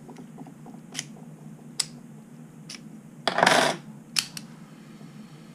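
Small metal clicks from a padlock and its key being handled, with a louder half-second metallic scrape just past the middle, the key working against the lock.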